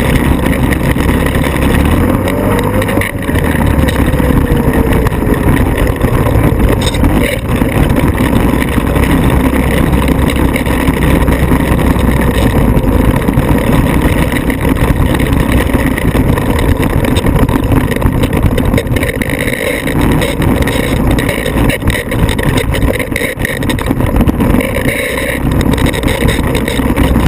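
Off-road vehicle engine running loudly and steadily, with no clear breaks.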